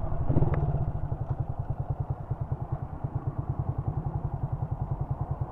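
1999 Honda CG Titan's single-cylinder four-stroke engine idling with a steady, even, rapid pulse.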